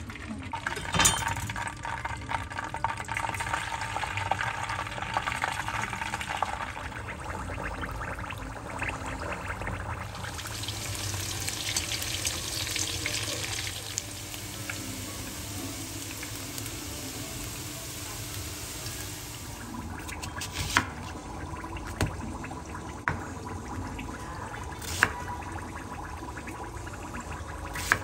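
Running water splashing, loudest for a few seconds near the middle, with a few light knocks.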